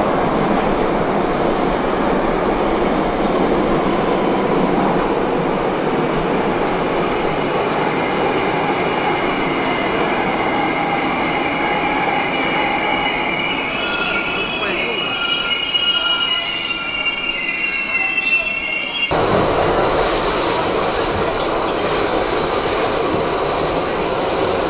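New York City subway train running, with steel wheels squealing in high, wavering tones from about ten seconds in. The squeal stops abruptly a few seconds before the end, leaving the steady rumble of the moving train.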